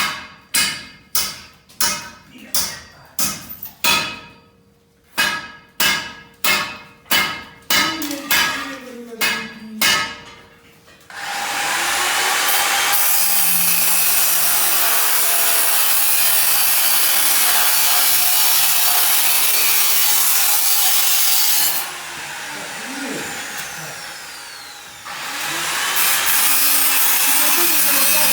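Sawing: about ten seconds of rhythmic back-and-forth strokes, roughly one and a half a second. Then a power cutting tool starts and runs steadily and loudly. It eases off for a few seconds about two-thirds of the way through, then runs at full speed again.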